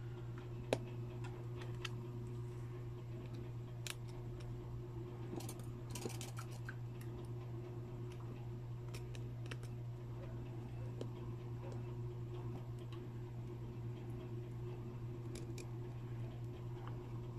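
Small sharp clicks and taps of a metal tool against a phone's internal parts and flex connector, sparse, with one distinct click about a second in and a quick cluster around six seconds in. A steady low hum runs underneath.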